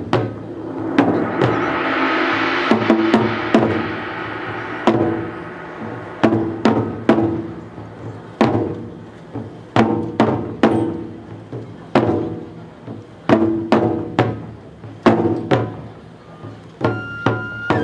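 Japanese festival drum music: sharp, loud drum strikes in an uneven rhythm, with a rushing swell of noise rising and fading a second or two in, and a high held note entering near the end.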